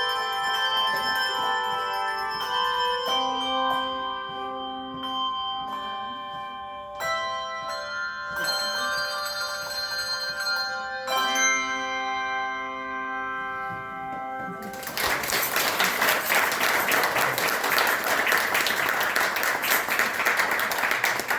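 Handbell choir ringing chords that sustain and change every second or two, closing a carol. About fifteen seconds in, the ringing gives way to audience applause.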